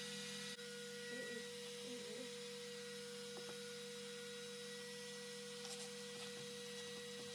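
Steady electrical hum with a few faint handling clicks, and a couple of brief spray-bottle squirts about six seconds in.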